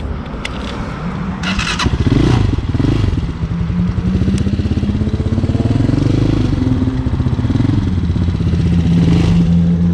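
Hawk 250 dirt bike's single-cylinder four-stroke engine pulling away and accelerating on a test ride, its pitch rising and dropping several times as it revs. A brief rattle comes about a second and a half in.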